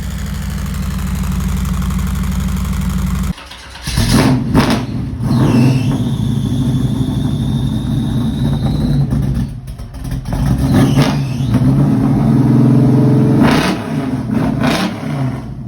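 Turbocharged Toyota's engine idling steadily, then after about three seconds it revs hard and accelerates in two long, loud pulls with a short lull between them, ending with a couple of sharp bursts.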